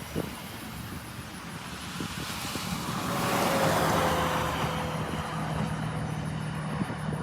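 Jet airliner passing, its engine noise swelling to a peak about halfway through and then fading, with a faint whine that falls in pitch as it goes by. A steady low hum runs underneath.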